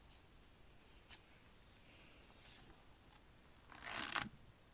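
Paper page of a spiral-bound wall calendar being turned over: faint rustling, with one louder swish of the page about four seconds in.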